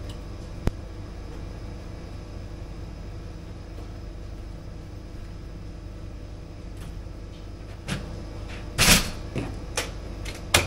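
Knocks and clicks as a bar clamp and spirit level are handled on a wooden counter top, with one sharp click about a second in and several knocks near the end, the loudest a brief scrape about nine seconds in. A steady low hum runs underneath.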